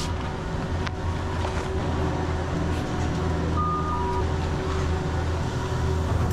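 Chairlift base-station machinery running with a steady low hum, and a short two-note electronic beep, high then lower, sounding a little before halfway through.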